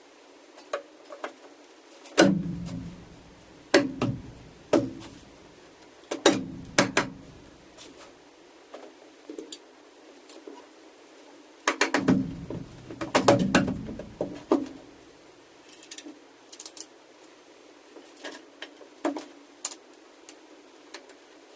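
Scattered clicks, knocks and clatter of metal parts and tools being handled while a battery module is reassembled, in irregular clusters with the busiest stretch about twelve to fourteen seconds in.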